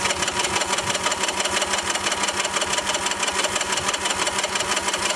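Honda TRX 125 ATV engine cranking over steadily without firing, with a fast, even chug and a constant whine from the starter. It will not catch because the spark plug wire is off the spark plug.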